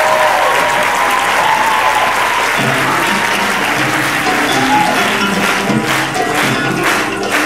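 Audience applause dying away as live musicians start a new tune: a plucked string instrument comes in about two and a half seconds in, and a steady clapped beat joins near the end.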